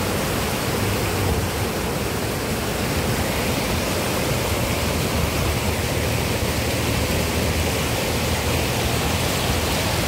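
White water rushing and churning down a stepped concrete weir, a steady unbroken rush of falling water.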